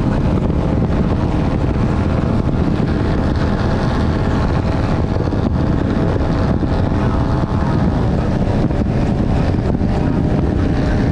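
28-foot Nordic Heat V-hull powerboat cruising at speed: a steady engine note under the rush of the hull over the water, with wind buffeting the deck-mounted microphone.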